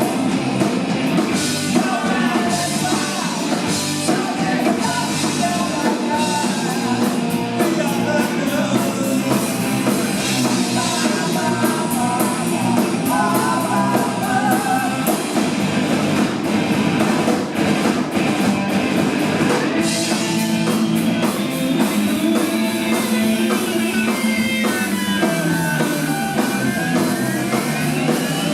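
Live rock band playing loud and fast, with singing, a drum kit and electric guitars. In the second half a wavering tone slides up and down above the band.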